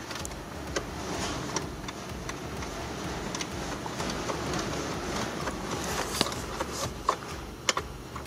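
Irregular light clicks and rustling from a 10 mm socket wrench and hands working a nut loose in the cramped space under a car's dashboard.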